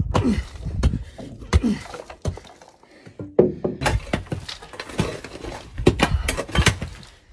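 Hand digging in rocky dirt: a digging tool strikes and scrapes the ground in irregular thuds and knocks, with a short lull about two and a half seconds in.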